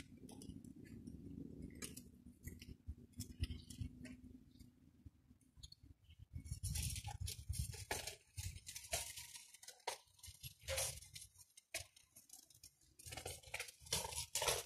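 Irregular light clicks and clinks of metal tools on a BMX bike's stem and handlebars as new bars are fitted, more frequent in the second half.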